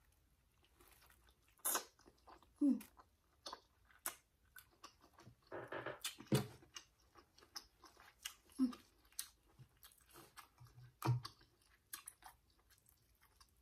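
Close-up mouth sounds of a person eating saucy king crab seafood boil: wet chewing, lip smacks and scattered clicks, with a few short hums.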